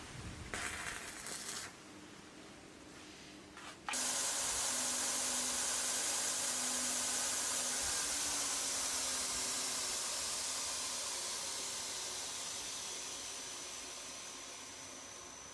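A loud hiss starts suddenly about four seconds in and slowly fades away, after some light rustling and knocks.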